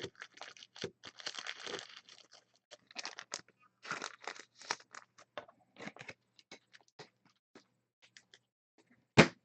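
Trading-card pack wrappers being torn open and crinkled as the cards are handled: a run of short, scratchy rustles and clicks, with one sharper, louder crack near the end.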